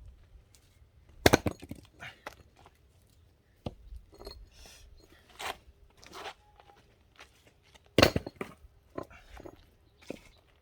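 Axe blows on firewood being split: two heavy, sharp strikes about six and a half seconds apart, with lighter knocks and the rustle of handled wood between.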